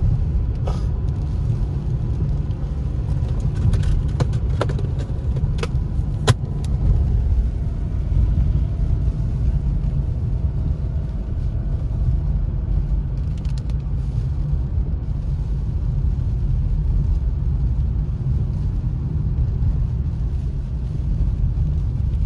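Road noise inside a moving car on wet pavement: a steady low rumble of engine and tyres, with a few sharp clicks in the first several seconds.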